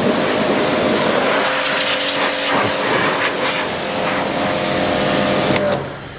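Pressure washer jetting water over a motorcycle, a steady loud hiss with the machine's motor hum, cutting off suddenly near the end.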